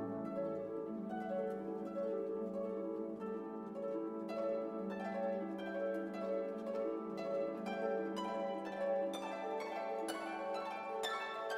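Instrumental background music with plucked strings, harp or pizzicato, playing a light melody over sustained lower notes.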